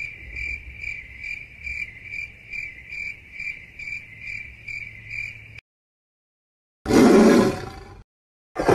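Cricket chirping, used as a cartoon sound effect: a steady high trill pulsing about twice a second that cuts off suddenly after about five and a half seconds. It is followed near the end by two short, louder noises.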